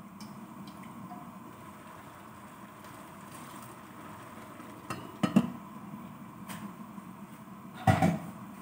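Glass pot lid with a metal rim knocking against an aluminium cooking pot: a few clinks around five seconds in, then a louder clatter near the end as the lid is set back on. Beneath it is a faint, steady sound of the pot simmering.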